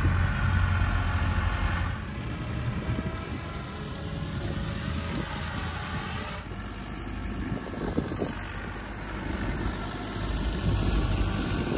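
Diesel tractor engine running steadily, its sound shifting at about two seconds and again at about six and a half seconds.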